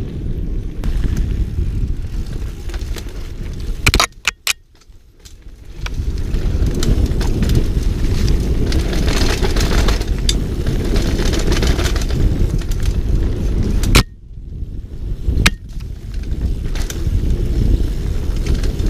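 Downhill mountain bike rattling over a dirt trail at speed, with wind buffeting the helmet camera's microphone. A cluster of sharp knocks about four seconds in and a single sharp knock about fourteen seconds in are each followed by a second or two of much quieter sound.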